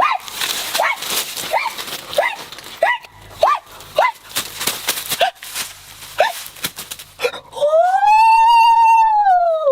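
Dog whining: a run of short rising-and-falling whimpers, then one long drawn-out whine that rises and falls near the end.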